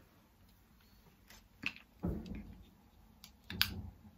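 Faint handling sounds of a 2-in-1 hair curler and straightener being worked through long hair: a few soft separate clicks and rustles. The loudest comes about three and a half seconds in.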